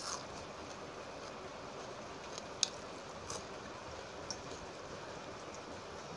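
Close-up eating sounds of soaked rice being eaten by hand: a handful of short, sharp, wet clicks from chewing and from fingers working the rice, the loudest about two and a half seconds in, over a steady hiss.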